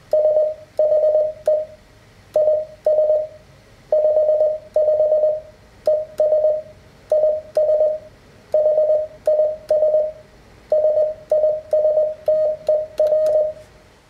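Morse code sidetone from an Elecraft KX3 transceiver: a steady mid-pitched beep keyed on and off by a paddle, sending "she is 55 and is his sister" in runs made almost entirely of dits.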